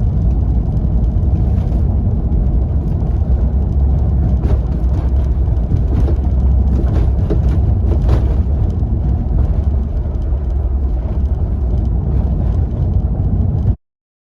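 Steady low road-and-drive rumble inside a moving Toyota Roomy's cabin, with scattered short clicks and creaks: the sliding-door rattle and creak.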